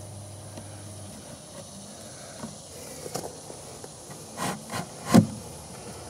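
Wooden beehive lid being lowered gently onto the hive, with a few light knocks of wood on wood about three, four and a half and five seconds in, the last the loudest, over a faint steady hiss.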